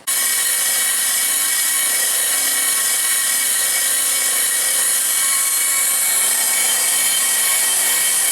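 A power tool running steadily with a high whine as a Volvo 850 brake disc is skimmed, to stop the disc vibrating and humming under braking.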